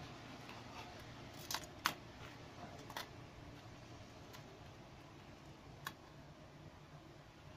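A handful of light, sharp clicks and taps as cardboard pieces and a steel tape measure are handled, the loudest about two seconds in, over a faint steady hum.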